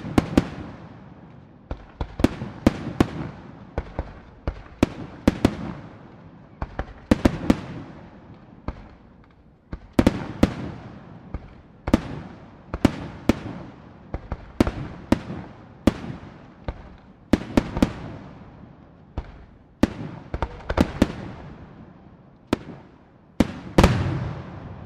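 Aerial fireworks shells exploding in a rapid barrage: dozens of sharp, loud bangs, often two or three close together, each trailing off in a rumbling echo.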